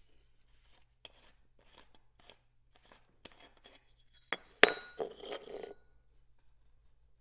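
Aluminium fly rod tube's screw cap being unscrewed and taken off, with small scrapes and clicks of metal on metal. About four and a half seconds in, two sharp metallic clinks with a short ring, then a second of rubbing and scraping.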